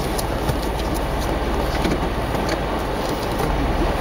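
Jeep Wrangler JK Unlimited engine and drivetrain running steadily as it crawls slowly through deep snow.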